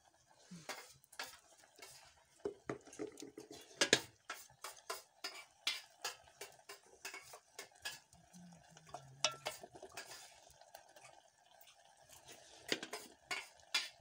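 A utensil stirring bee larvae in a metal pan, with irregular clinks and scrapes against the pan, as the larvae cook down until their water has dried off.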